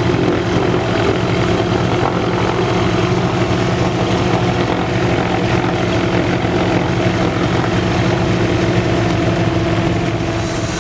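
Douglas DC-3's radial engines and propellers running steadily at low taxiing power, heard from inside the cabin.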